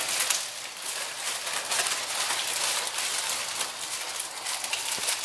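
Cardboard box being handled, with crackly rustling and scraping throughout.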